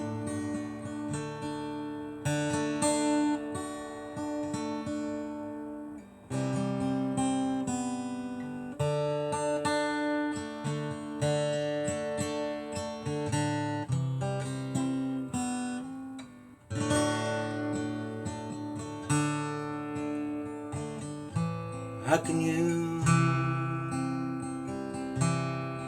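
Acoustic guitar playing an instrumental passage of a song, strummed and picked chords with brief pauses between phrases.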